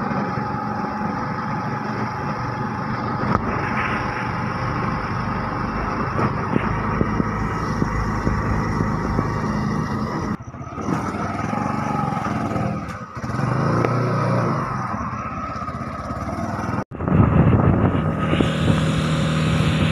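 Engine and road noise heard from inside an open passenger vehicle moving along a highway. It breaks off abruptly a few times, and grows louder near the end.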